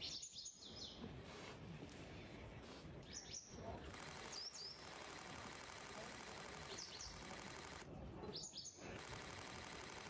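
Wild birds chirping: short, quick high calls every few seconds, faint over steady background noise.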